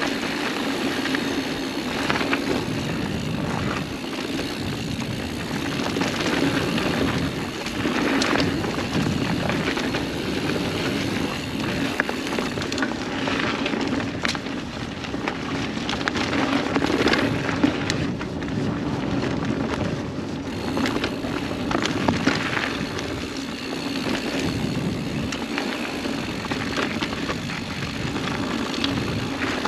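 Mountain bike riding fast on dry dirt singletrack: a steady rush of knobby tyres on dirt and dry leaves, with scattered clicks and rattles from the bike over bumps.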